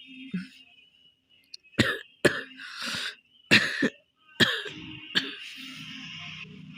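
A woman coughing from a cold: after a short quiet spell, a run of about six sharp coughs, the last one drawn out into a longer rasp.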